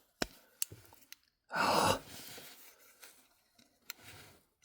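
A person's short, breathy sigh about a second and a half in, with a few small clicks of a diecast model car being handled around it.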